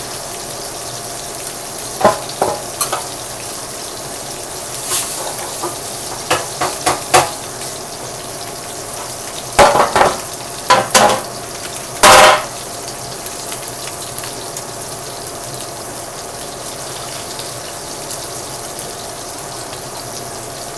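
Pork loin sizzling steadily as it browns in a pan, with several bursts of clattering and knocking from utensils and cookware, the loudest about twelve seconds in.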